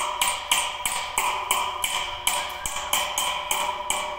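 Steel being hammered in an even rhythm, about three blows a second, each blow leaving the metal ringing with a clear tone that carries on between strikes.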